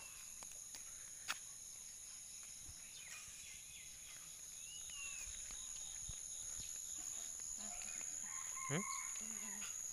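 Rural morning ambience: a steady high-pitched drone of insects such as crickets, with a short bird chirp about halfway through and a brief rooster call near the end.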